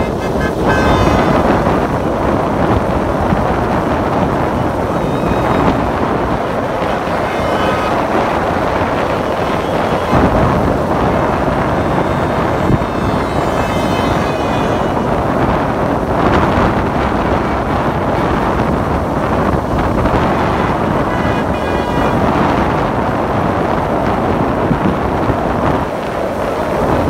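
Continuous stream of cars and pickup trucks driving past on a wet road, tyres hissing on the wet surface, with car horns tooting several times.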